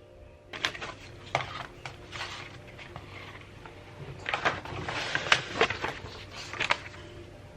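Hands handling small objects and packaging up close: an irregular run of light taps, clicks and rustles, busiest in the second half.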